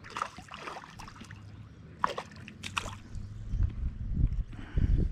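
A hooked panfish on a fly line splashing and thrashing at the pond's surface as it is drawn in, a few short sharp splashes in the first three seconds. Low rumbling noise fills the second half and is loudest near the end.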